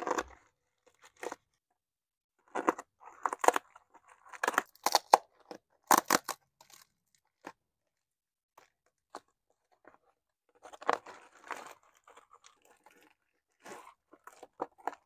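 Brown packing tape being slit with a utility knife and peeled off, and bubble wrap crinkling as it is pulled open, in irregular bursts of ripping and crackling with short pauses between.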